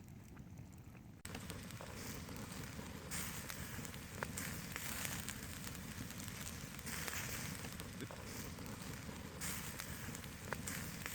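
Open wood campfire crackling, with scattered sharp pops over a steady hiss of flame; it grows louder about a second in.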